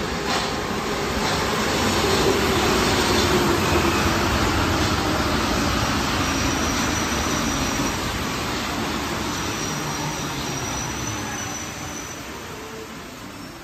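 MP 73 rubber-tyred metro train running into the station and slowing. Its running noise swells over the first couple of seconds, with a low whine falling in pitch, and a thin high squeal comes in from about six to eleven seconds in. The sound then fades as the train slows near the end.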